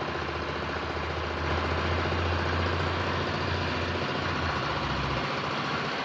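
An engine idling steadily in the background, a low, even hum.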